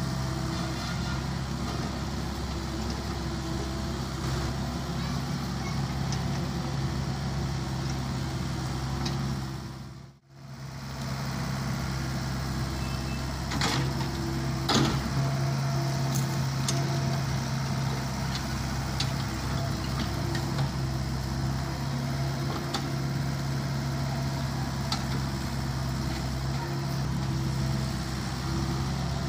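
Small Volvo excavator's diesel engine running steadily under load as it digs and loads garbage, with a few sharp knocks from the bucket about 14 to 15 seconds in. The sound drops out for a moment around ten seconds in.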